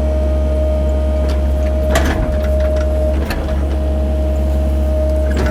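Cat 308 mini excavator's diesel engine running under load with a steady high whine, while the machine works dirt; a few knocks and clatters break in, the loudest about two seconds in.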